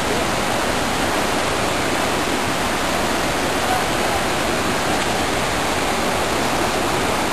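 Rushing mountain stream pouring over boulder rapids: a steady, loud wash of white water.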